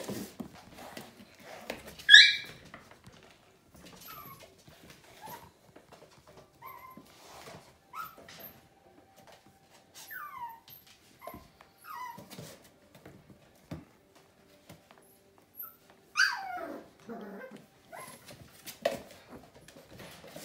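Young puppies giving short high-pitched yelps and whines, with a loud yelp about two seconds in and another loud burst of cries later on, among light clicks and knocks.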